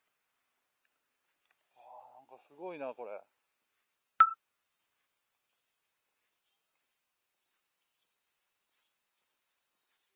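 Steady, high-pitched chorus of insects in the surrounding woods, with a short voice call about two seconds in and one sharp click about four seconds in.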